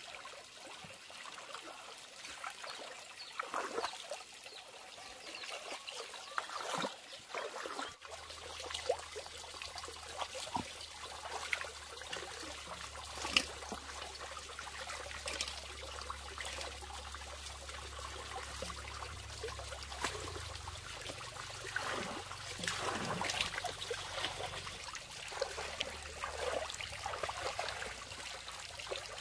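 Water trickling and splashing, broken by many short splashes and small knocks, the sharpest about halfway through. A faint low hum runs through the middle stretch.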